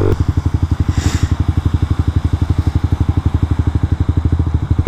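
Suzuki GSX-R125's single-cylinder four-stroke engine idling, with a steady, even beat of about a dozen pulses a second.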